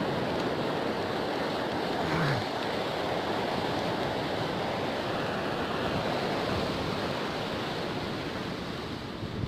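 Ocean surf breaking and washing up a sandy beach: a steady rush of waves and foam, fading slightly near the end.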